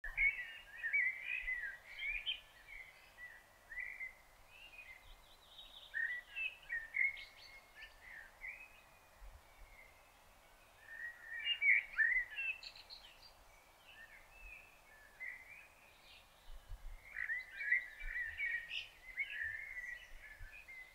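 Songbirds singing: phrases of quick twittering, warbling notes, a few seconds long, repeated with short pauses between them.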